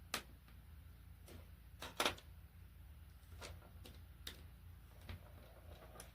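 Small sharp clicks and taps of a precision screwdriver working the tiny screws out of a Samsung Galaxy A15's internal frame, about six scattered clicks with the loudest about two seconds in, over a low steady hum.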